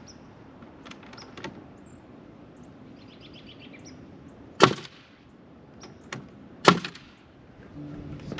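Pneumatic framing nailer firing twice, about two seconds apart, driving nails into wooden wall framing, with a few lighter wooden knocks before. A steady low motor hum starts near the end.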